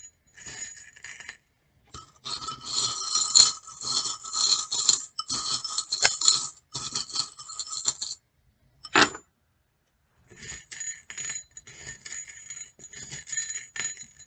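A handful of small trinkets and charms rattling and clinking as they are shaken and jumbled together, with one sharp knock about nine seconds in and lighter clinking after it.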